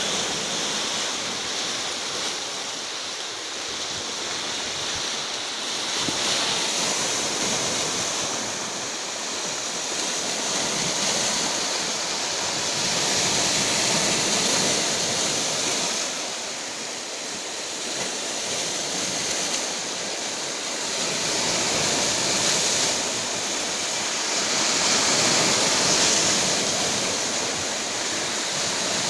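Rough, stormy sea: a continuous rush of surf that swells and eases every several seconds as waves come in.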